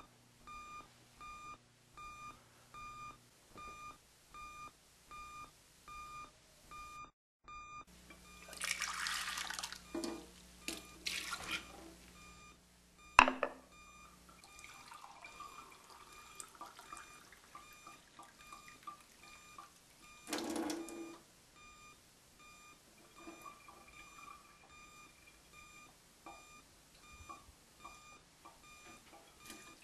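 An electronic alarm clock beeping about twice a second. Several seconds in, water runs from a tap into a sink in short gushes, with one sharp knock, while the beeping goes on faintly underneath.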